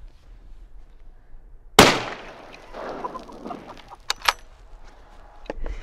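A single .308 rifle shot about two seconds in, fired at thick lake ice, with an echoing tail after the report. Two sharp clicks follow a couple of seconds later.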